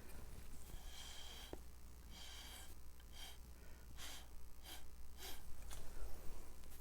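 A series of short puffs of breath blown onto wet acrylic paint, about six in a row, each under half a second, pushing the paint across the canvas.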